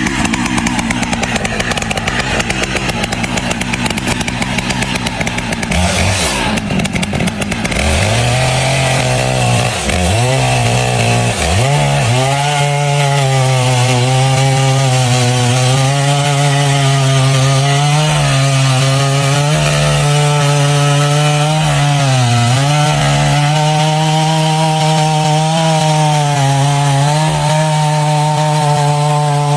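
Two-stroke chainsaw running at high revs while cutting wood. Its engine note holds steady but sags briefly a few times as the chain bites in.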